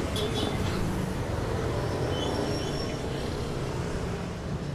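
Steady street traffic noise, with motorcycle and motorcycle-tricycle engines running.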